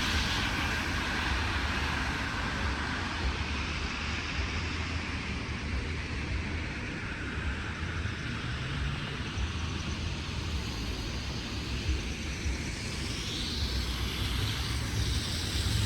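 City street traffic: a steady low rumble with tyre hiss from passing cars. The hiss is loudest at first and eases off over the first few seconds.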